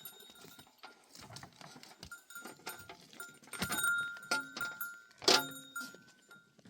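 Goats and sheep bleating now and then, with a small metal livestock bell ringing among them and a sharp knock about five seconds in.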